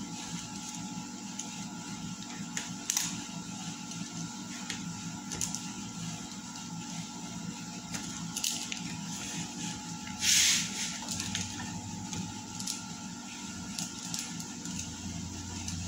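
Small screwdriver scraping and prodding at a cardboard box and its packing tape, with scattered small clicks and a brief loud rip about ten seconds in.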